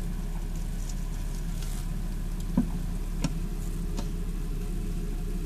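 A steady low hum, with three faint clicks in the second half.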